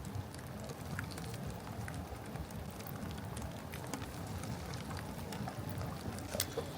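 Steady rain falling, with scattered sharp ticks.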